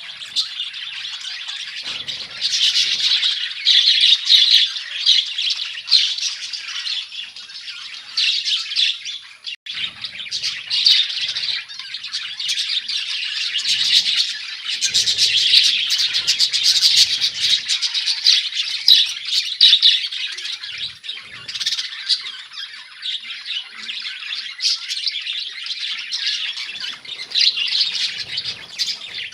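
A colony of budgerigars chattering, squawking and chirping together, many birds at once without a break.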